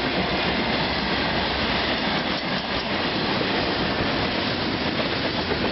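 A long freight train's cars rolling past: a steady rumble and rattle of wheels on the rails.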